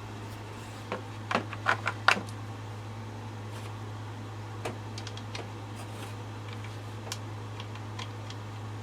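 A quick run of sharp clicks and knocks about a second in, then scattered lighter ticks, from hard parts being handled while working on a chainsaw. A steady low hum runs underneath.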